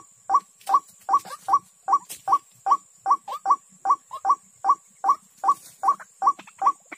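White-breasted waterhen calling: a long, very regular run of short, identical notes, about two and a half a second.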